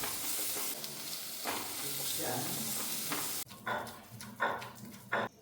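Food sizzling in a hot pan as it is stirred. The sizzle cuts off suddenly a little over three seconds in, followed by a few light taps and clicks.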